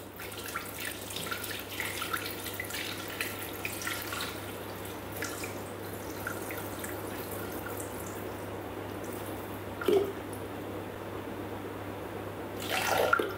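Water poured in a steady trickle from a plastic bottle into a Thermomix's stainless steel mixing bowl, with small drips and splashes. A brief louder sound comes about ten seconds in and again near the end.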